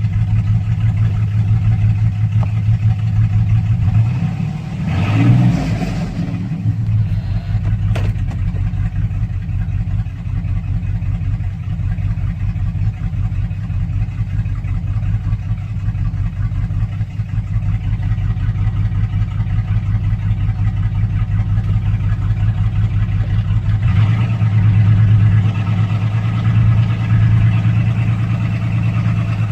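Chevrolet 4.3-litre V6 engine idling rough and uneven, with a brief rev about five seconds in and a sharp click a few seconds later. The roughness is the sign of a cylinder 5 misfire with an injector circuit fault (codes P0305 and P0200).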